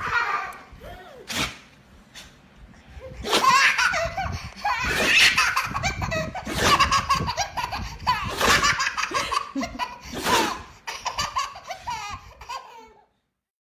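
A baby laughing hard in repeated belly-laugh peals, loudest from about three seconds in until near the end.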